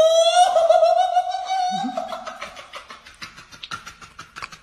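A person's loud scream of pain, rising in pitch and held for about two seconds, as liquid is poured onto an open wound. It then gives way to rapid bursts of laughter.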